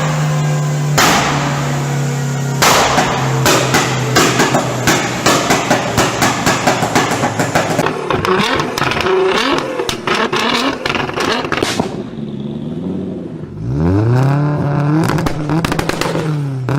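Performance car exhausts popping and crackling: an engine held at steady revs with a couple of loud bangs, then a long run of rapid sharp pops and crackles. Near the end an engine revs up, holds and drops back.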